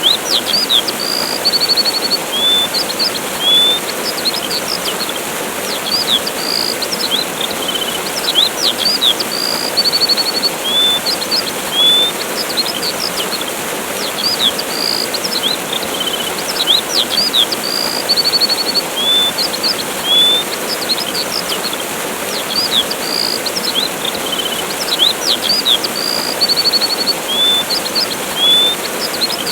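A waterfall rushing steadily, with songbirds chirping, whistling and trilling over it. The same run of bird calls comes round about every nine seconds, as in a loop.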